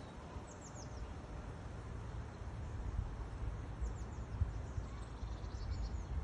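Wind rumbling on the microphone, with faint, quick, high chirps of small birds in three short runs: about half a second in, around four seconds in, and near the end.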